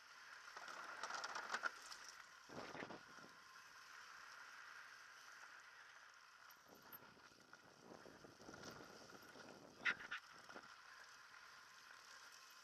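Mountain bike coasting down a dirt singletrack, heard faintly from a helmet camera: low tyre and wind noise, with short clatters of the bike over bumps, the sharpest about ten seconds in.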